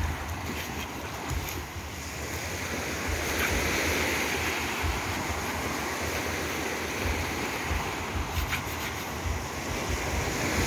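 Small surf breaking and washing up a sand beach: a steady wash of noise that grows a little louder about three seconds in.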